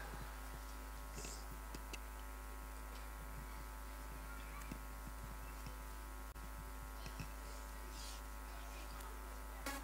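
Steady low electrical hum with a stack of even overtones, with a few faint scattered clicks and taps.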